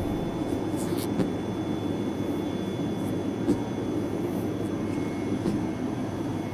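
Printmaking room ambience: a steady low mechanical rumble, with a few faint clicks and taps about a second in.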